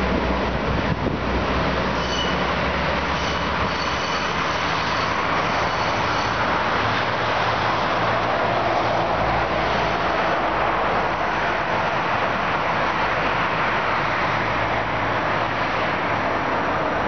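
Red and blue regional multiple-unit train pulling away from the platform, mixed with steady expressway traffic noise. Thin high-pitched squealing tones sound for a few seconds, starting about two seconds in.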